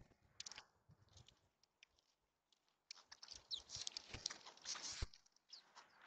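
Faint pecking, clicking and rustling of birds feeding at a seed feeder, with a few soft clicks just after the start and a denser cluster of small taps and scrabbles from about three to five seconds in.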